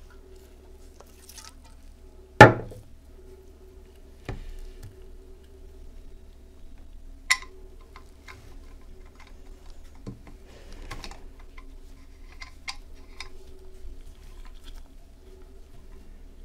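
Light metal clicks and taps as a small threaded brass filler cap is handled and screwed onto the brass tank of a kerosene lamp, with one sharp knock, the loudest sound, about two seconds in.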